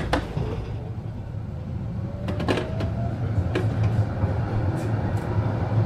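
Düwag GT6Z articulated tram heard from inside, pulling away. A clunk at the start, then a low rumble that slowly builds, a faint rising whine about two seconds in, and a few sharp clicks.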